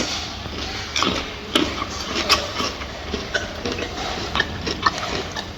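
A gorilla eating, with irregular crunches and sharp clicks as it chews, over a steady low background hum.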